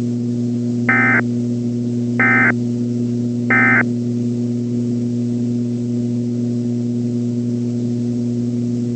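Three short bursts of EAS SAME end-of-message (NNNN) data tones, each about a third of a second long and about a second apart, starting about a second in. A steady low electrical hum runs beneath them.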